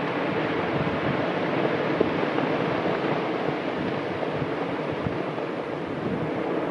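Basaltic lava fountain jetting from the eruptive vent of Piton de la Fournaise: a steady rushing noise like heavy surf, with one sharp crack about two seconds in.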